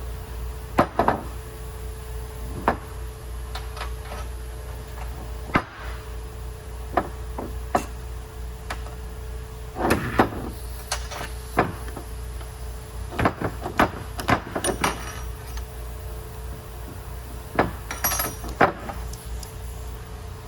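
Irregular metallic knocks and clanks of hand tools and parts being handled, some in quick clusters, over a steady low hum.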